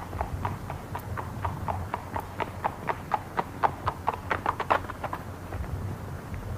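Horse's hooves clip-clopping on hard ground, several strikes a second, getting louder as the horse comes closer, then thinning out about five seconds in as it pulls up. A low steady hum runs underneath.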